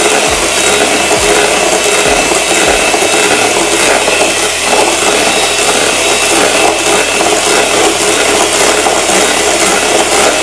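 A 400-watt Haeger electric hand mixer running steadily on its lowest speed, its beaters whisking still-thin liquid cream in a plastic bowl, at the early stage of whipping. A faint motor whine sits over the whirring, with a few soft knocks in the first few seconds.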